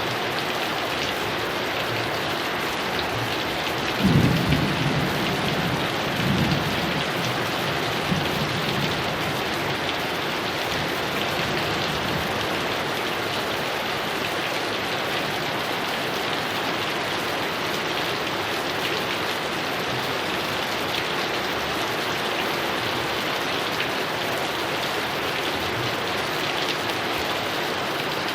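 Heavy rain falling steadily, with a thunder clap about four seconds in and rumbling that dies away over the next few seconds.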